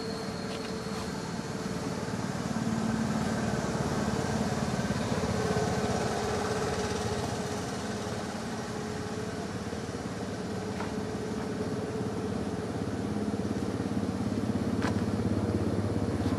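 A steady engine hum from a motor vehicle, which gets louder a few seconds in and again near the end.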